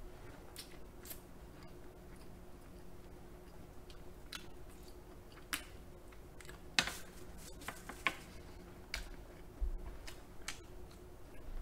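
Close-miked eating sounds: chewing and mouth smacks with scattered soft clicks, a few at a time, over a faint steady hum.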